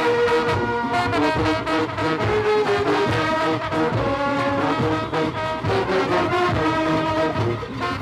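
Junkanoo brass band of trombones, trumpets and sousaphones playing a lively tune in a street parade, held notes and runs over low thumping beats.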